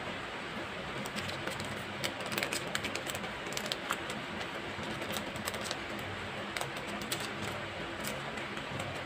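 Irregular light clicks and taps from fingers handling small magnetic bookmarks and their plastic packaging close to the microphone, over a steady background hiss.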